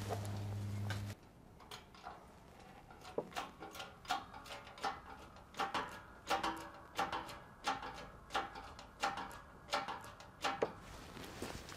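Hand-pumped hydraulic shop press being worked to press a new bearing race into a truck wheel hub: a steady run of clacks, often in pairs, about one pair every 0.7 seconds, stopping shortly before the end. A low hum cuts off about a second in.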